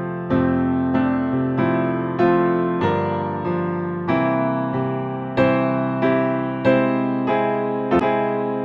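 Electric piano playing gentle chords, a new chord struck about every half second to second and fading under the next.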